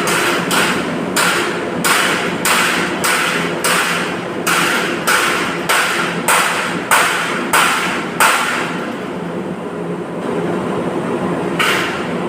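Hammer striking metal about twice a second, a run of roughly fifteen blows that stops about eight seconds in, with one more blow near the end. A steady hum runs underneath.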